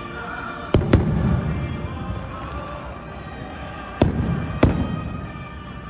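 Aerial fireworks bursting: two pairs of sharp bangs, about a second in and again about four seconds in, each followed by a rumbling echo.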